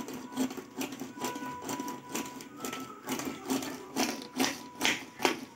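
Hand-operated pull-cord vegetable chopper being worked: each tug on the cord spins the blades inside the plastic bowl with a short whirr. About a dozen quick pulls, roughly two a second.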